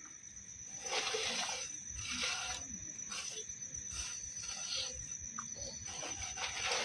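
Night insects, crickets, keeping up a steady high-pitched trill, with several short hissing rustles over it.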